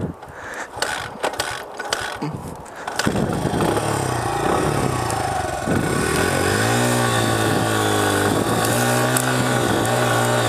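Honda CRF100F's small single-cylinder four-stroke engine being restarted after stalling on a hill climb. A few short knocks are heard from the kick-starting, then the engine catches about three seconds in and keeps running. From about halfway through, it is blipped so the revs rise and fall.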